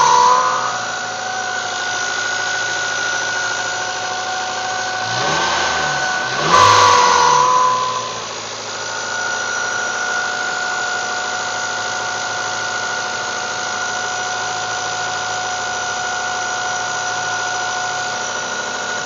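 1995 Mazda Miata's 1.8-litre four-cylinder engine idling with a steady high-pitched whine from the front of the engine, revved briefly at the start and again about seven seconds in. The noise appears only on a cold start and goes away once warm; the owner suspects the belt tensioner or the water pump.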